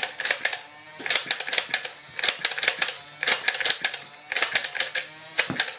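Battery-powered Nerf blaster firing foam darts in rapid bursts: about six bursts of quick mechanical clicking, each well under a second long, with short pauses between.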